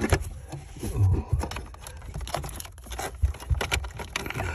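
Hands moving hard plastic parts among wiring: scattered clicks, light knocks and scrapes, with a few dull thumps.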